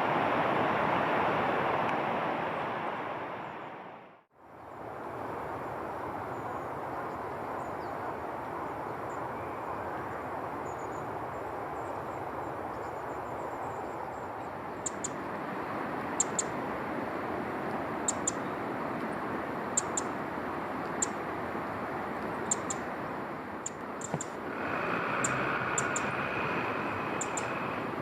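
Short, high-pitched bird chirps repeating at irregular intervals over a steady rushing background noise.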